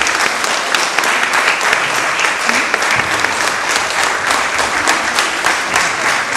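An audience clapping steadily and loudly, the dense patter of many hands.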